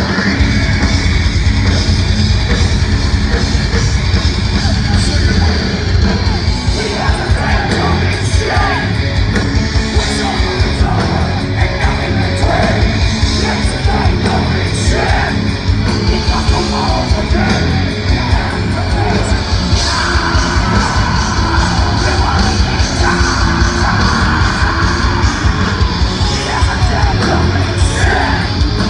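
Heavy metal band playing live and loud, with a singer's shouted vocals over electric guitars, heard from within the crowd.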